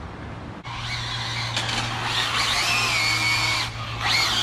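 Twin electric motors of an Arrma Felony RC car whining under throttle: the pitch glides up and holds, drops off briefly about three and a half seconds in, then climbs again near the end.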